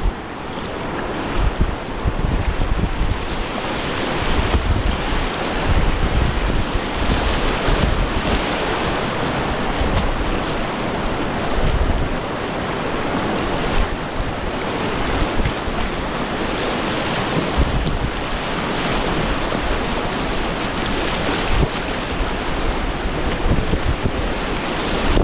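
Whitewater river rapids rushing and splashing around a kayak's bow, with wind rumbling on the microphone in gusts.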